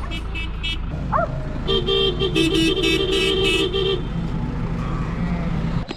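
A vehicle running with a steady low rumble, and a horn tooting in one held blast of about two seconds, starting a little under two seconds in.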